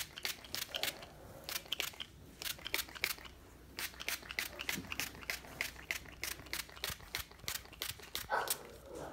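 Aussie leave-in conditioner spray bottle spritzing onto locs while fingers rub through the hair: a quick, irregular run of brief crisp hisses and rustles, several a second.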